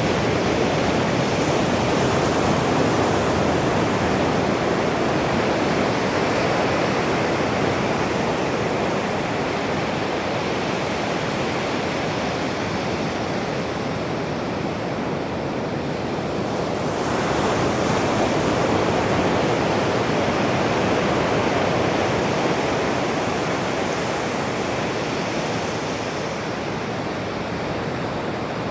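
Ocean surf breaking on a sandy shore: a continuous wash of waves that swells louder again about halfway through, then eases off near the end.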